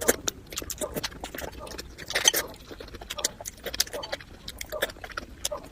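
Close-miked crunchy chewing: a dense run of irregular crisp crunches and mouth clicks, with a louder crunch about two seconds in.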